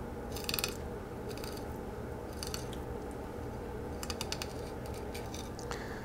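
Fillet knife slicing a burbot fillet off its rib cage: short bursts of crackly, crunchy clicks as the blade ticks over the small rib bones, several times, with a steady low hum underneath.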